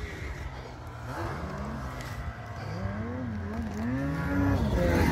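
Snowmobile engine revving up and down repeatedly, getting louder toward the end.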